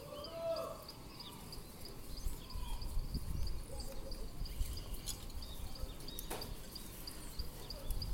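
Outdoor ambience: low rumbling noise of wind or movement on the microphone, with a steady high-pitched ticking about three times a second, a few short bird-like chirps, and one sharp click about six seconds in.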